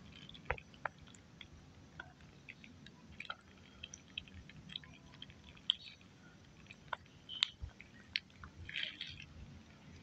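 Thick yogurt squeezed from a plastic pouch and landing on spice-coated raw chicken in a bowl: faint wet squishes with scattered light clicks.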